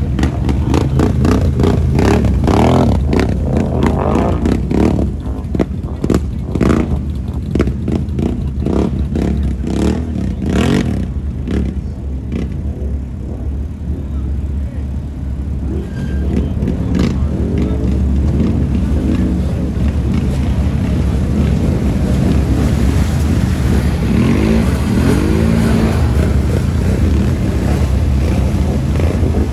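ATV engines running and revving as the quads plough through a shallow creek, with water splashing around the tyres. The engine pitch rises and falls repeatedly, with a run of sharp knocks and splashes in the first half.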